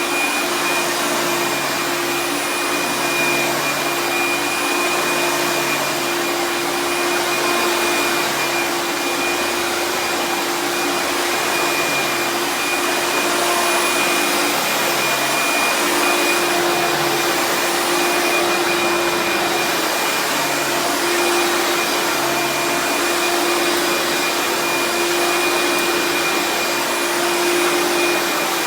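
Vintage vacuum cleaner running on low-pile carpet: a steady motor hum and fan noise with a constant high whine.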